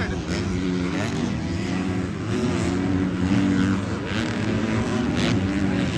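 Several motocross race bikes' engines running on the track at once, rising and falling in pitch as the riders accelerate and back off.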